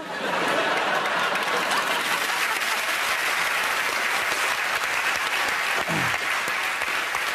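Studio audience applauding, breaking out suddenly and holding steady.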